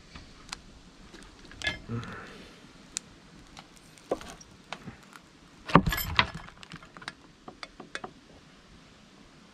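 Metal tools and engine parts clinking and knocking against a cylinder head while it is handled and worked on: scattered sharp clicks, with a louder cluster of clanks a little past the middle.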